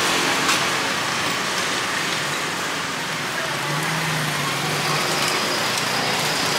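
Steady outdoor street noise of motor traffic and engines, with a few light clicks and a faint high tone near the end.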